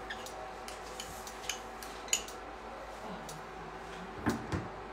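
Metal teaspoon clinking and scraping against a small glass bowl as crushed garlic is spooned out, in scattered light clicks. A couple of louder knocks come near the end as the spoon taps the garlic off onto the raw chicken wings in a ceramic dish.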